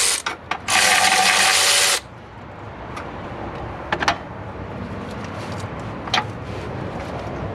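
Ratchet running a battery hold-down bolt in two quick runs, about a second and then a second and a half long, that stop abruptly, followed by a few light metallic clicks.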